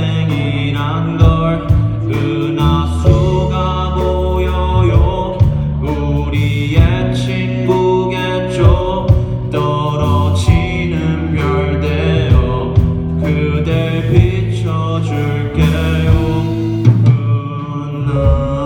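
A live band playing a pop song, the full band sounding continuously.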